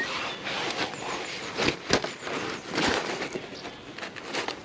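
Close rustling and scattered knocks from hands working in a landing net to unhook a small carp, with one sharp click about two seconds in. Faint bird chirps behind.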